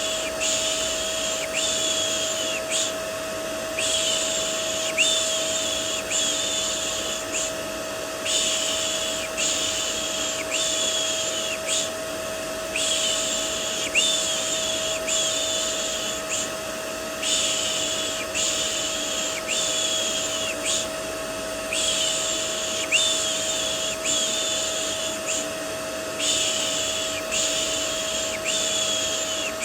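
Looped shushing: repeated 'shh' sounds in runs of three with a short pause about every four and a half seconds. Underneath, a vacuum cleaner runs with a steady whine.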